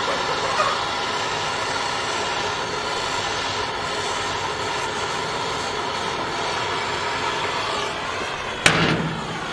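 Handheld butane cartridge torch blowing a steady hissing flame onto firewood in a gas cooker's oven; near the end the hiss stops and the metal oven door is shut with a single sharp knock.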